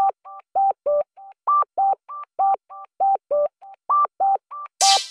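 Rapid run of telephone keypad (touch-tone) beeps, about three a second, each a short two-note tone, some louder than others. Near the end a short burst of static hiss comes in.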